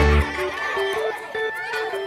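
Background music: a light melody of short, separate notes. A deep bass note drops out just after the start.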